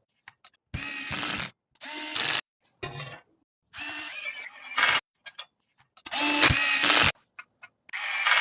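Small electric screwdriver whirring in about six short bursts, with small clicks in the gaps between them.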